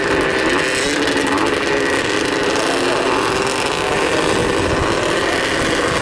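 Several small youth racing snowmobile engines idling together at the start line, a steady, unbroken engine drone.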